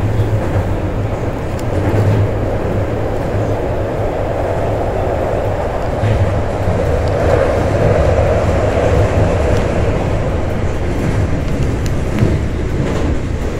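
Kobe City Subway Seishin-Yamate Line train running, heard from inside the car: a steady low hum under wheel-and-rail rumble that swells a little midway, with a couple of sharp clicks near the end.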